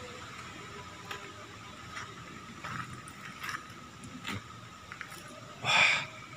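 Footsteps on a littered factory floor: a few soft steps spread out over several seconds, then one louder scuff or crunch near the end.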